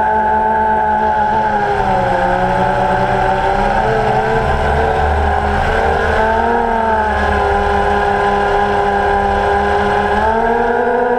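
Multirotor drone's motors and propellers whining steadily. The pitch dips about two seconds in, wavers through the middle and rises again near the end as the motor speeds change.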